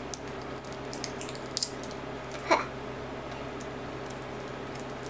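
Faint crinkling and clicks of the thin plastic wrapper on a candy cane being bitten and picked at to peel it off, with one louder crackle about halfway, over a steady low hum.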